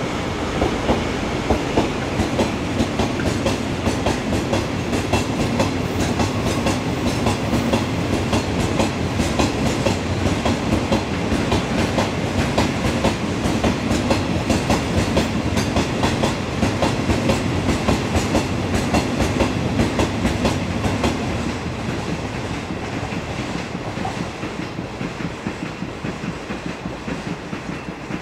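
Iwate Kaihatsu Railway freight train of Hoki 100 hopper wagons hauled by a DD56 diesel locomotive, passing close by with a steady rumble and a rhythmic clickety-clack of wheels over rail joints. The clatter eases somewhat after about 21 seconds and goes on more faintly.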